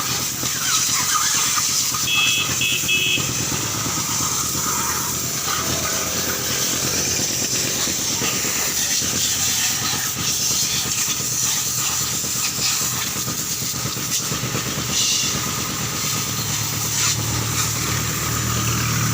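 High-pressure washer jet hissing steadily at a bike wash, with a motor hum underneath. A few short high beeps sound about two seconds in.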